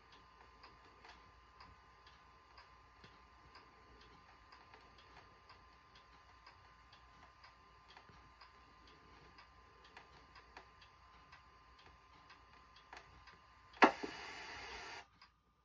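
Faint, steady ticking, about two ticks a second, like a clock. Near the end comes a sharp click and about a second of loud static hiss from the TV as the VHS tape runs onto blank tape and the picture turns to snow. The hiss then cuts off suddenly.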